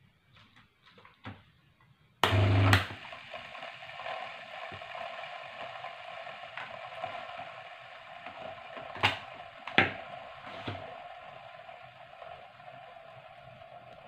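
Washing machine motor, wired with its run capacitor, switched on at the mains about two seconds in: a loud jolt with a low hum as it starts, then it runs with a steady hum and whine, showing the wiring is correct and the motor works. Two sharp knocks near the middle.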